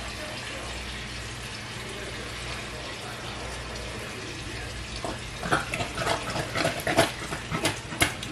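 Home-canned potato chunks tipped from a glass jar into a cast-iron skillet of hot oil. A run of irregular plops and splatters starts about five seconds in, over a steady faint hiss from the pan.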